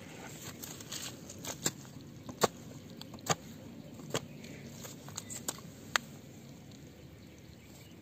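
Short-handled hoe chopping into hard, clumpy soil: a series of sharp strikes, roughly one a second, that stop about two seconds before the end.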